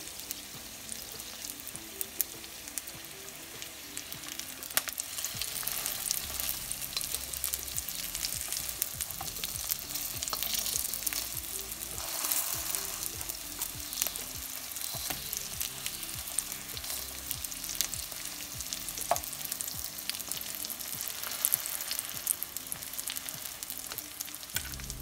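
Martabak mie dough pockets frying in shallow oil in a wok: a steady sizzle with scattered crackling pops. Partway through, a spatula scrapes against the wok as the pieces are turned.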